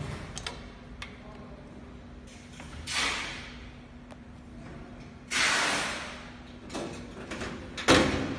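Semi-automatic tube filling and sealing machine running with a steady hum, giving two hisses of air, the second longer and louder, and sharp clicks near the end.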